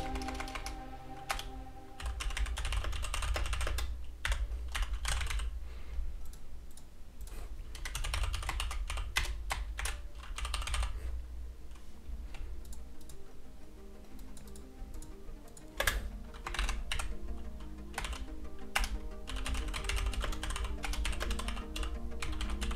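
Typing on a computer keyboard in irregular runs of keystrokes, over quiet background music.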